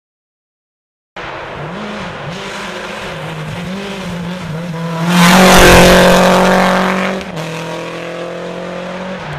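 Rally car at speed on a gravel stage: its engine note rises and falls as it approaches. It is loudest, with a rush of gravel and tyre noise, as it passes close about five seconds in, then the engine note drops as it drives away.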